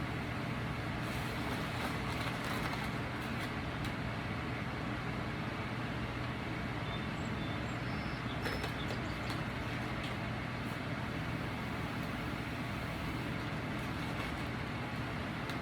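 Steady mechanical hum over hiss, with a few faint clicks.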